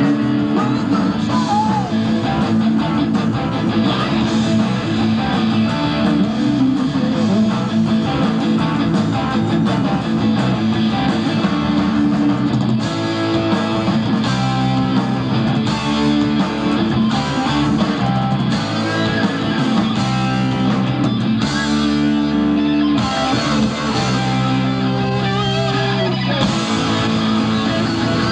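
Rock band playing live: electric guitars over a full drum kit, loud and unbroken.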